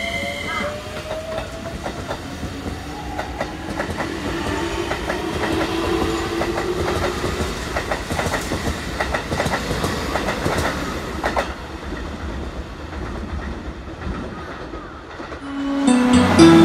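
Keikyu electric train pulling away: its motor whine rising slowly in pitch as it gathers speed, with the wheels clicking over rail joints and points, fading as the train moves off. Music comes in near the end.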